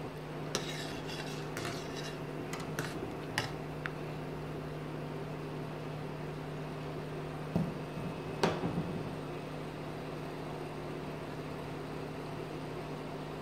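A metal ladle stirs a steel stockpot of heating water and vegetables, clinking sharply against the pot several times in the first few seconds. Two louder knocks follow about a second apart past the middle, over a steady low electrical hum.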